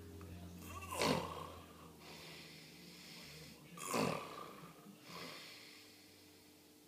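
A sleeping person snoring: two loud snores about three seconds apart, with a fainter one after the second.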